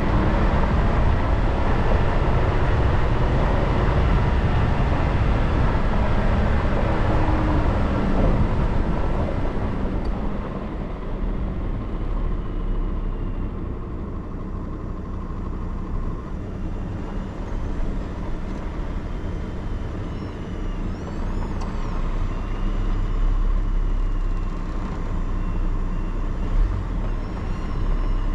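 A vehicle driving on an unsealed dirt road: steady tyre, road and engine rumble, louder with more hiss for the first ten seconds or so, then quieter and lower.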